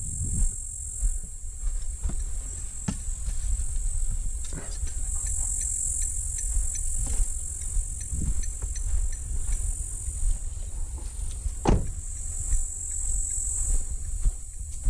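Steady high-pitched drone of insects in the bush, over a low rumble, with scattered clicks and knocks; the loudest is a single sharp knock near the end.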